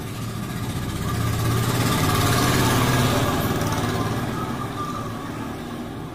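A motor vehicle engine passing by, growing louder to a peak about halfway through and then fading away.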